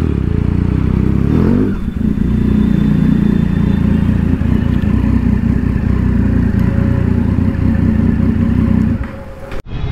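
Triumph Street Triple's inline three-cylinder engine running at low revs as the motorcycle rolls slowly in at walking pace. There is a brief change in engine note about two seconds in, and the sound cuts off abruptly near the end.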